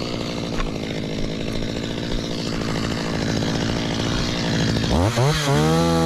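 Stihl chainsaw running at low speed, then revved hard about five seconds in as it starts cutting into a coconut palm trunk. Its pitch rises and dips as the chain bites into the wood.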